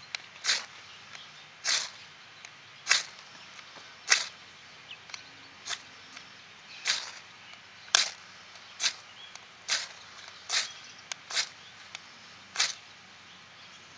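A ferrocerium flint rod is pulled hard along the back edge of a steel knife blade braced in the tinder. It makes a sharp scraping rasp about once a second, roughly a dozen strokes, with faint ticks between. He is striking sparks to light a campfire.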